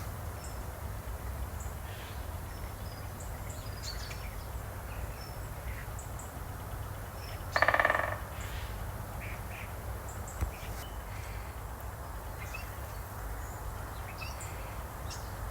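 Outdoor birdsong with faint, scattered small-bird chirps over a steady low rumble, and a single loud, harsh crow caw about halfway through.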